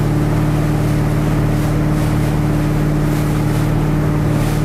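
Lyman motorboat's engine running at steady cruising speed, a constant low drone with a higher hum above it, with wind and water rushing past the open boat.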